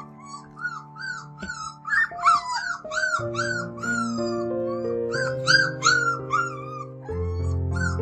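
A litter of young puppies whining and yipping, short high-pitched calls several a second, over background music with sustained chords.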